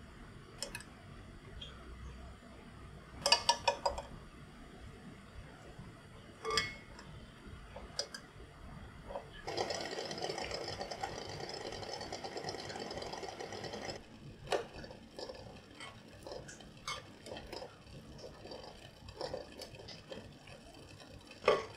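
Quail eggs clinking against the bottom of a glass pot of water as they are set in, a quick run of glassy clicks. Then the pot boiling on a gas burner gives a steady hiss for about four seconds, and later scattered taps of tongs and a wire strainer against the glass as the eggs are lifted out, with one loud clink near the end.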